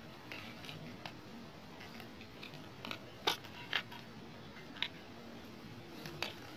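Sharp plastic clicks from a visor being handled and pressed onto a bogo-style open-face helmet, a few separate clicks with the loudest about three seconds in.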